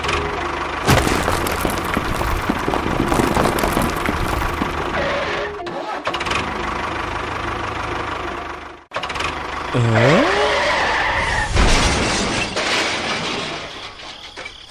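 A small engine or motor running with a steady, noisy hum, cut off abruptly twice as if by edits. A brief gliding, voice-like tone sounds about ten seconds in.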